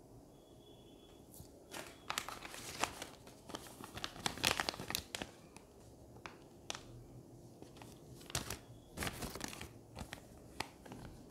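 Clear plastic zip bags of electronic components crinkling as they are handled, in two spells of quick crackles, the first starting about two seconds in and the second near the end.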